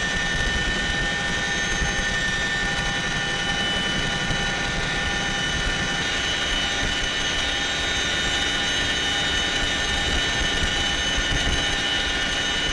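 CH-47 Chinook helicopter's turbine engines and rotors running steadily, heard from inside the cabin, with a constant high transmission whine over the rotor noise.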